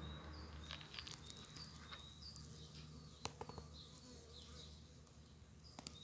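Bumblebee buzzing with a low, steady hum that fades somewhat, while a small bird gives short high chirps over and over, with a couple of sharp clicks.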